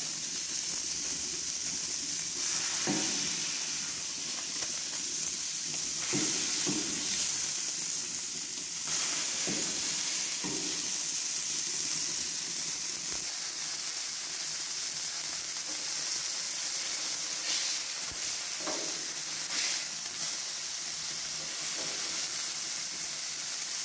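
Beef mince smash-burger patties sizzling steadily on a hot Char-Griller flat iron griddle, with a few brief scrapes and knocks of a metal spatula on the griddle plate as they are pressed and turned.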